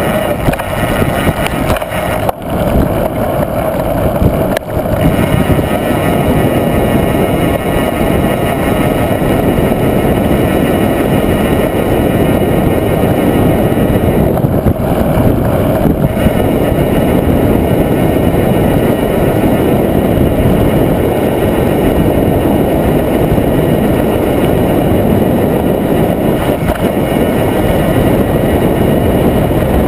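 Steady, loud wind rush and rumble on a body-mounted camera's microphone as a mountain bike rolls fast down a paved road, with two short knocks in the first five seconds.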